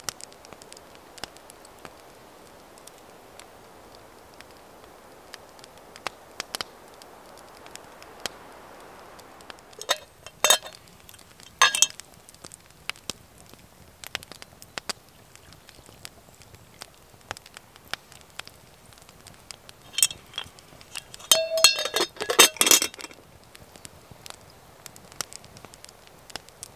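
Campfire crackling with scattered small pops, while the iron handle and lid of a hanging iron pot clink as coffee is poured from it into a cup. A couple of ringing clinks come about ten seconds in, and a louder rapid cluster of clinks comes near the end.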